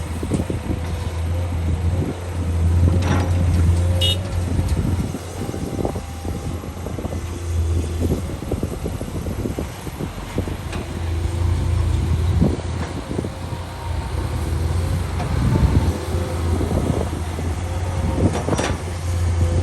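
A heavy machine's diesel engine running with a deep drone that swells and eases several times under load, with scattered clanks and knocks.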